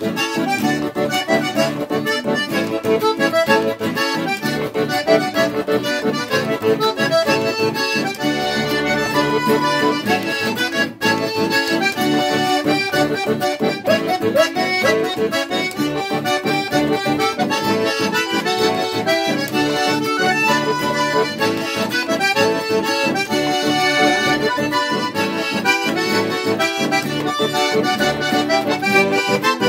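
Chamamé campero played on a button accordion carrying the tune, with a nylon-string acoustic guitar strumming the accompaniment.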